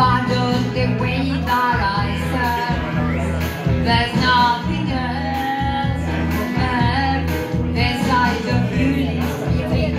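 A woman singing live into a handheld microphone over amplified musical accompaniment, with a bass line and a steady beat.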